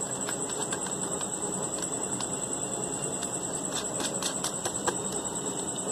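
Small scattered clicks of fingers fitting the fastening screw onto the centre shaft of a quartz wall-clock movement, thickest about two-thirds of the way through, over a steady high-pitched whine.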